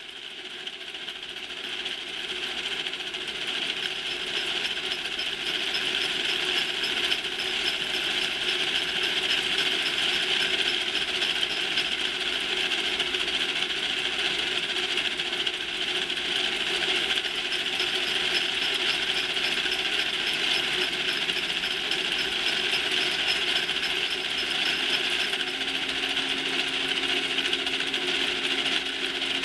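Factory machinery ambience: a dense, steady mechanical clatter and rattle with several held tones, fading in over the first few seconds. A low hum joins about 25 seconds in.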